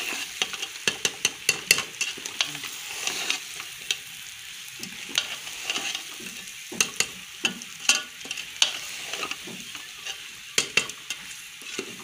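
A metal spoon stirring potatoes and carrots in a tomato masala in an aluminium pot, the spoon clicking and scraping against the pot again and again over a steady sizzle of frying.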